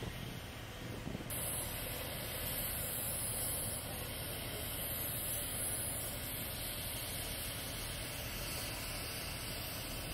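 Steady outdoor background noise with no clear single source; a high hiss comes in abruptly about a second in.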